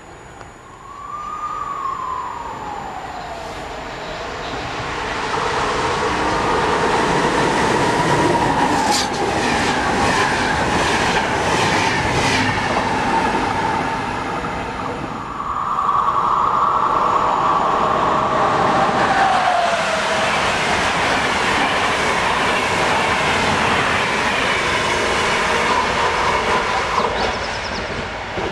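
A train passing close by on the rails: a steady rolling rumble, a whining tone that slides down in pitch early on and again later, and a quick run of clicks from the wheels over rail joints partway through.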